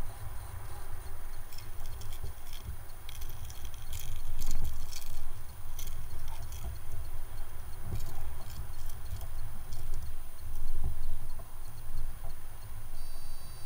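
Scattered light clicks and rattles from a kayak fisherman handling his landing net and rod, most of them in the first half, over a steady low rumble of wind and water at the kayak.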